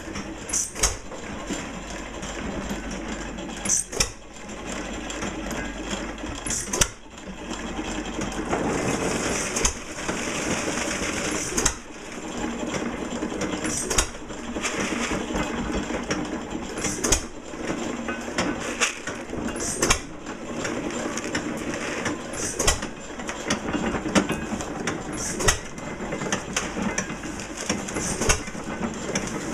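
1924 Fairbanks-Morse Model Z hit-and-miss engine firing with a sharp bang about every three seconds and coasting between the firings. Underneath, the belt-driven Hocking Valley corn sheller it powers runs with a steady rattling clatter as it shells corn.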